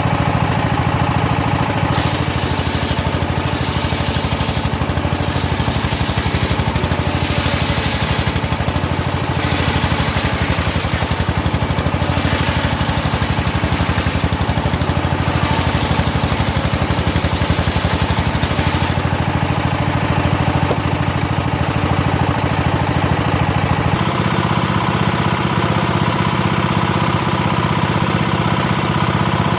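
Engine-driven homemade circular saw bench running steadily, its blade ripping hard teak in a series of cutting passes that add a harsh high sawing noise over the engine, mostly in the first half. About 24 s in, the cutting noise stops and the engine note becomes lower and heavier.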